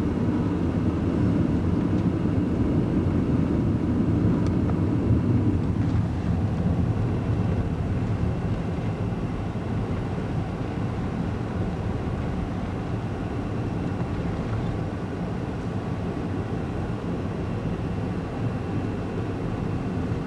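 Steady low rumble of a car's engine and tyres heard from inside the moving car, a little louder for the first six seconds and then easing slightly.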